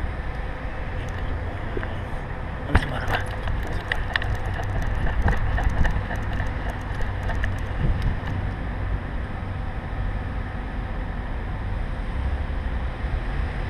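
Steady low rumble of rubbing and knocking from a chest-harness-mounted action camera jostled by a walking dog. Scattered clicks, with a sharp knock about three seconds in.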